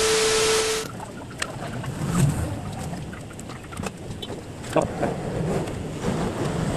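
A burst of TV-static hiss with a steady beep in it, under a second long, as a video transition effect. Then a low, uneven outdoor rumble with a few light clicks.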